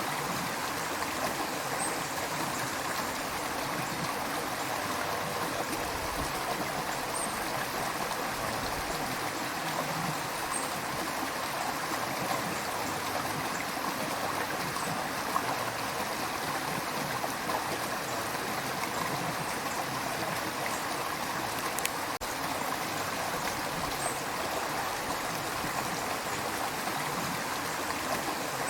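River water flowing over rocks in a steady, even rush with some trickling and gurgling.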